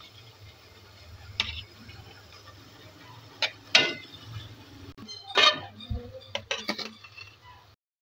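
Metal utensils clinking and scraping against a steel bowl and an aluminium cooking pot as rice is added, a scattered series of sharp clinks, loudest about four seconds in. The sound cuts off suddenly just before the end.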